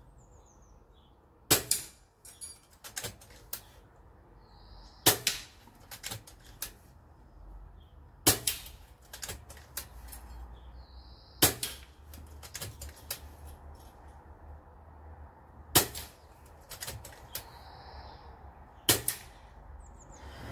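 An FX Dreamline .22 PCP air rifle firing six shots, one every three to four seconds, each a sharp crack. Lighter clicks follow each shot as the bolt is cycled for the next pellet.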